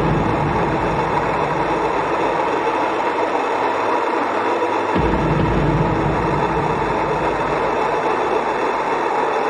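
Dungeon synth / dark ambient music: a dense, hissing, rumbling synth texture with a steady mid-range drone. A deep bass note comes in at the start and again about five seconds in.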